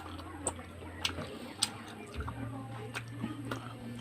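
Close-miked chewing and wet mouth noises while eating, with a few sharp clicks in the first two seconds.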